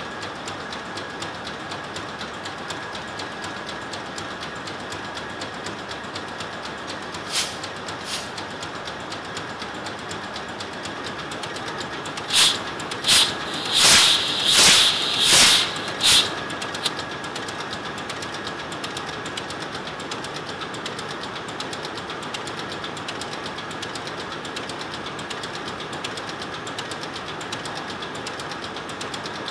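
Ship's two-stroke main diesel engine running, a steady mechanical clatter with a constant whine over it. About twelve seconds in, a cylinder's indicator cock is opened to purge the line and gives six loud puffs of gas, one with each firing stroke, evenly spaced under a second apart.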